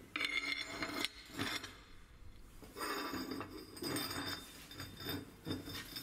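Welded steel test pieces, a plate and a pipe, being handled and set down on a workbench: clinking and scraping of metal, a burst about a second long at the start and more rattling with a light metallic ring from about three seconds on.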